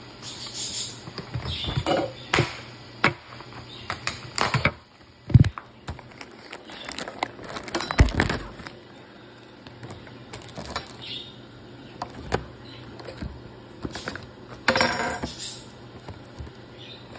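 Irregular knocks, clicks and rubbing from a phone being handled right against its microphone, with two sharper thumps a few seconds apart and a longer scraping rustle near the end.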